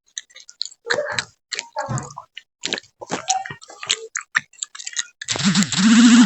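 Chewing gum being chewed and smacked in the mouth, a run of irregular wet clicks and snaps. About five seconds in, a louder drawn-out voiced sound comes in over it.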